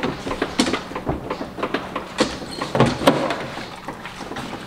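Wire grille doors of plastic dog crates rattling and latching, with steel dog food bowls knocking against them: an irregular run of clicks and knocks.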